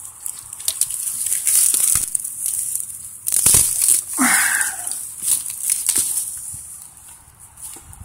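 Dry grass, reeds and brush rustling and crackling as someone pushes through them on foot, with irregular sharp snaps of stems and twigs; the loudest snap comes about three and a half seconds in, followed by a brief unidentified sound.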